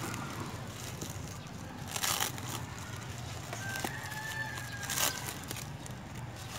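Plastic bubble wrap crinkling and rustling as it is pulled off a metal detector's shaft, with a few sharper crackles about two seconds in and again about five seconds in.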